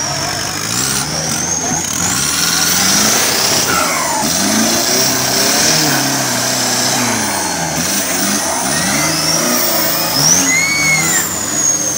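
Off-road pickup truck engine revving up and down repeatedly as the truck churns through deep mud, with a high wavering whine over it.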